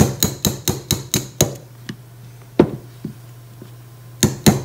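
Polymer-faced hammer tapping a pin punch to drive the frame pins out of an LC9s pistol frame. A quick run of about seven light taps, each with a short metallic ring, is followed by a single tap about two and a half seconds in, then more taps starting near the end.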